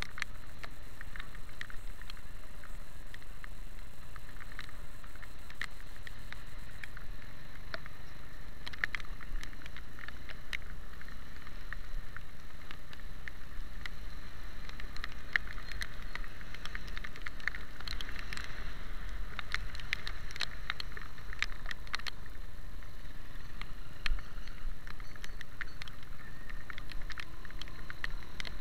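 Raindrops ticking irregularly on the camera over the steady low rumble of a ride along a rain-soaked street.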